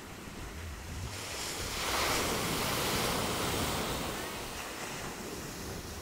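Small sea waves breaking and washing up the sand, one surge swelling about two seconds in and then fading.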